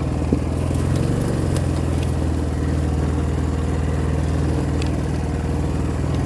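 A vehicle engine running steadily at low speed, with a sharp click about a third of a second in.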